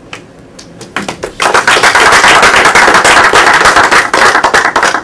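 Small audience applauding: a few scattered claps about a second in, then loud, dense clapping that stops suddenly at the end.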